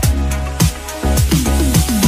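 Background music: an electronic track with a deep kick drum falling in pitch on each beat, about two beats a second.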